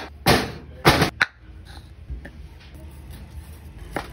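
Cleaver work on a thick wooden chopping block: two short scrapes and a sharp click in the first second, then a few faint taps and a sharper knock near the end as the blade cuts through a calamansi.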